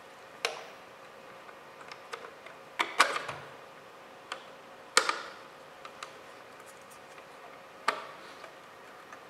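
Sharp plastic and metal clicks and knocks as a DVD drive is handled in an open desktop computer case and its cable connectors are worked loose, about six in all, the loudest about three and five seconds in and another near the end.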